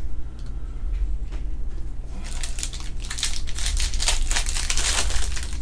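Crinkling and tearing of a 2021 Panini Chronicles Baseball trading-card pack wrapper being ripped open by hand. A few scattered crinkles come first, then a dense run of crackling about two seconds in that lasts around three seconds.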